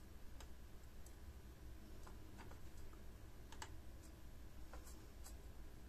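Faint, irregular small clicks and taps of a soldering iron and component leads against a circuit board during hand soldering, the sharpest about three and a half seconds in, over a low steady hum.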